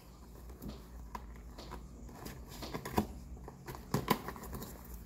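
Cardboard box being opened by hand: small scattered scratches, clicks and rustles of the cardboard flaps, with a sharper snap about three seconds in and another about a second later.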